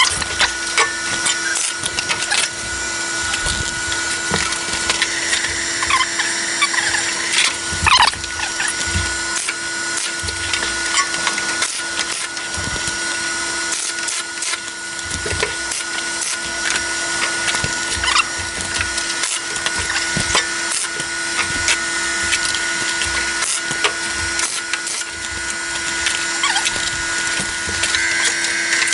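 MIG welder tack-welding a new steel body panel, a steady crackling through the whole stretch. The shielding gas has not been turned on, which the welder blames for welds that would not come out clean.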